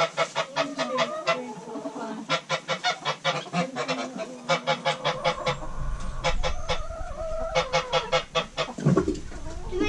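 Chickens cackling and squawking in rapid runs of short, sharp calls, several clusters one after another.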